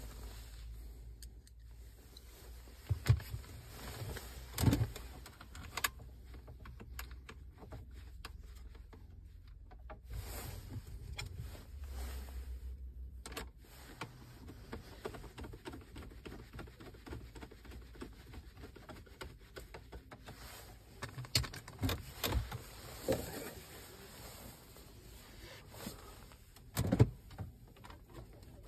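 A replacement car radio head unit and its plastic dashboard trim are handled and pressed into the centre console. Scattered knocks and clicks of plastic on plastic come through, with a few louder thumps, over a low steady rumble.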